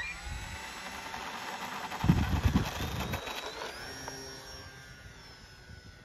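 Electric motor and propeller of a Durafly Bf 109 radio-controlled model warbird at takeoff power: a steady high whine with several tones that rises a little in pitch about three and a half seconds in and fades as the model pulls away. A cluster of low thumps comes about two seconds in.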